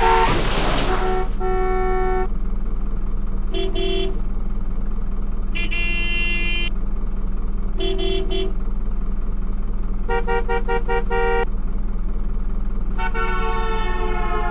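Six separate horn honks, each a short steady tone of a different pitch, most lasting under a second and the last two longer, over a steady low hum. A brief noisy burst comes right at the start.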